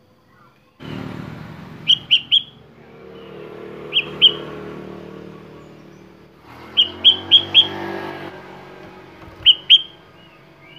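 Sooty-headed bulbul giving short, sharp chirps in quick clusters of two to four: three, then two, then four, then two. Under the chirps, a steady low background rumble starts suddenly about a second in and fades out near the end.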